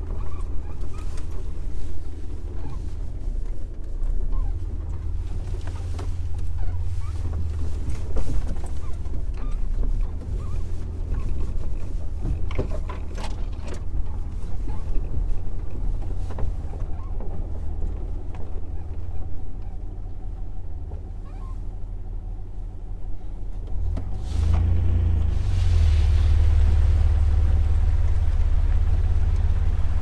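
Jeep Wrangler TJ with the 4.0-litre straight-six driving over a rough trail: a low, continuous engine and tyre rumble with scattered knocks and rattles from the bumps. About four-fifths of the way through, the rumble turns louder and steadier.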